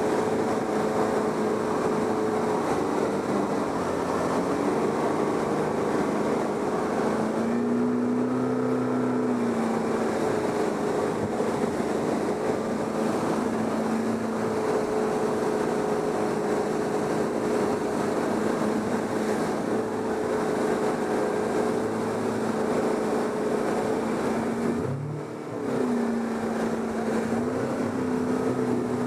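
Motorboat engine running steadily over a rushing noise, its note shifting a few times, with a brief drop and climb back up near the end.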